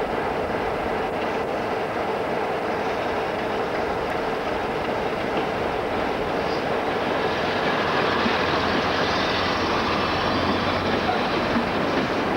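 Diesel-hauled freight train passing steadily, with the locomotives' engines running and wheels clicking over the rail joints. A second train comes alongside near the end, and the noise grows in the second half.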